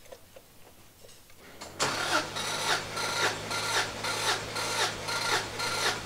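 Subaru GC8 Impreza STI's flat-four engine cranked over by its starter motor during a compression test, with the spark plugs out and a compression gauge screwed into one cylinder, so it does not fire. Starting about two seconds in, there is a steady starter hum with a rhythmic chug about twice a second as the engine turns over.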